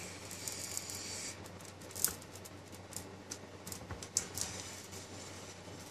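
Metal putty knife working sticky hash oil against a glass baking dish: a light scrape in the first second or so, then scattered soft clicks and taps of the blade on the glass.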